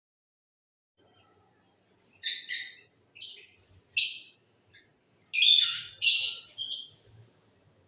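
Pet lovebirds chirping, a run of short, shrill, high calls in quick succession starting about two seconds in.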